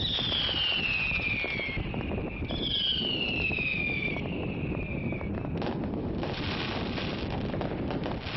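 Fireworks: two whistling rockets, each a falling whistle lasting about a second and a half, one after the other, then a single sharp bang about five and a half seconds in. Wind rumbles on the microphone throughout.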